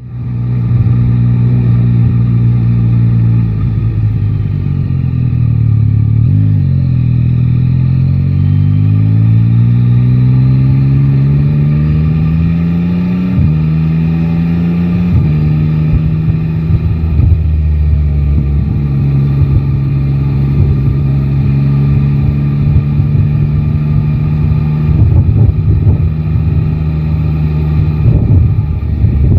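Yamaha Tracer 9 GT's inline three-cylinder engine pulling away and accelerating through the gears, its pitch climbing and dropping at three upshifts, then holding a steady cruise. Low wind rumble on the microphone throughout.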